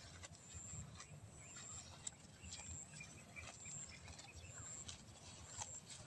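Faint outdoor field ambience: short high chirps recurring about every second, a few soft clicks, and a low wind rumble on the microphone.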